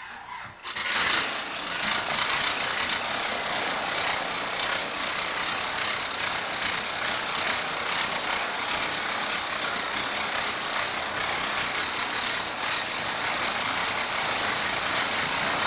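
Stearman PT-17 biplane's radial engine starting up about a second in, then running steadily at idle with a rattling clatter.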